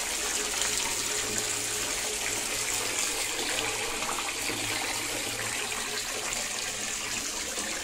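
Bath tap running, a stream of water pouring steadily into a part-filled bathtub.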